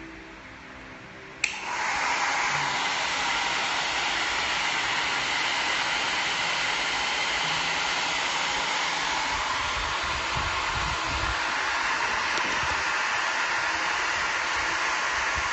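A sharp click, then a handheld hair dryer starts up and runs steadily with an even rushing blow: it has been switched on through the remote-controlled socket.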